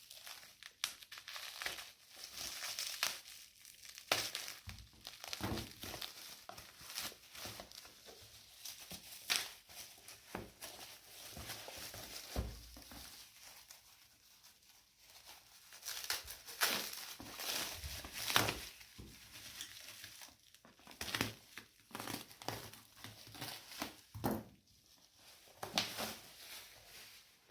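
Plastic bubble wrap being handled and pulled off a box: irregular crinkling and crackling with sharper tearing and rustling moments, coming and going in bursts with short pauses.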